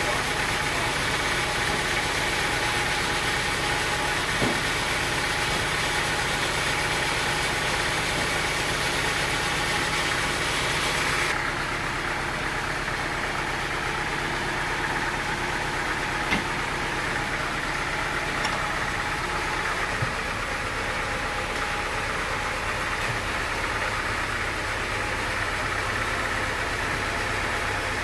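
Band sawmill's power unit running steadily at idle, the blade not cutting, with a few light knocks as the teak log is handled on the carriage.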